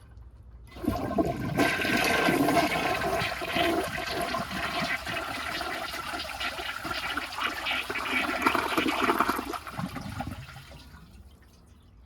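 A 1991 Peerless toilet flushing: the water rushes in about a second in, runs strongly for several seconds, then dies away near the end.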